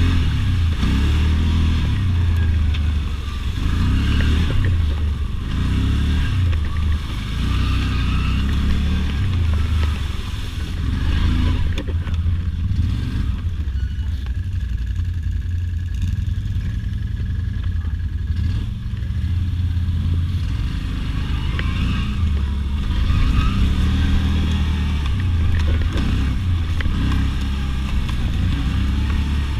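ATV engine running while riding a trail, its revs rising and falling again and again as the throttle is worked.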